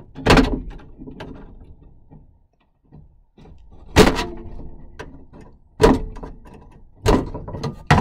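Sharp metal knocks and clunks inside a 1960s Ford's steel door shell as a screwdriver and hand work at a stuck lock-rod clip and the camera is jostled. There are about five hits, each with a short ring.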